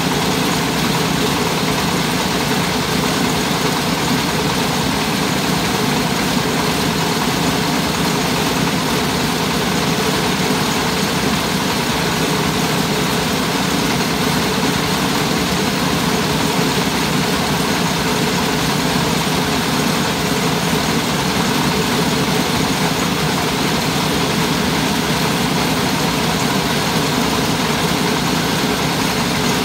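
Mobile rice huller (selep keliling) running steadily, its engine and milling machinery making a constant loud din as unhulled rice is milled.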